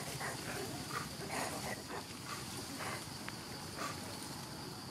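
Short animal calls, about eight of them spread across a few seconds, over a steady high-pitched insect drone.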